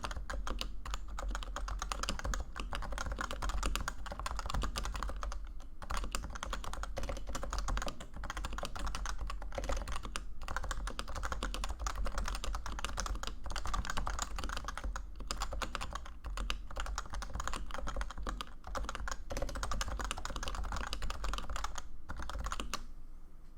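Continuous fast typing on a Leopold FC980C keyboard with Topre electrostatic capacitive switches (rubber domes over conical springs), a dense run of keystrokes that stops shortly before the end.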